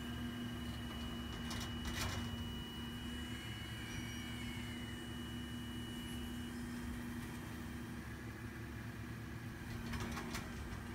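Grapple truck's engine running steadily, with a steady hum from its hydraulic knuckle boom as the boom and claw swing, and a couple of knocks about two seconds in and again near the end.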